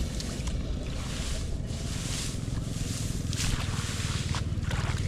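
Water splashing and sloshing in short irregular bursts, over a steady low rumble.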